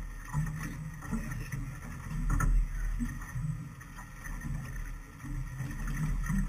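Low rumble of a small boat on the water, with a single sharp knock about two and a half seconds in.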